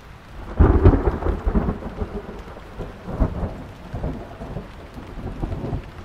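Rain falling steadily, with a sudden loud thunderclap just over half a second in that rumbles on and slowly fades, swelling again a few times.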